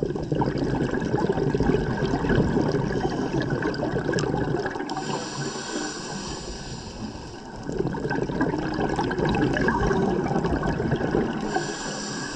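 Scuba diver breathing through a regulator underwater: two long exhalations of bubbling noise, each several seconds, with a quieter hissing inhalation between them and again near the end.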